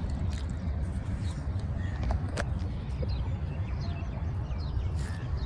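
Birds chirping and calling in short, scattered notes over a steady low rumble.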